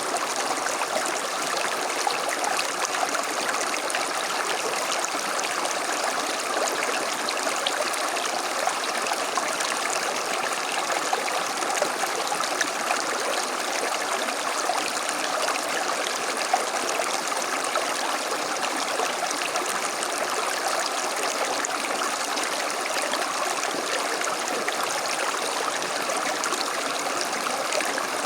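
A small creek running over stones, a steady babbling and trickling of water.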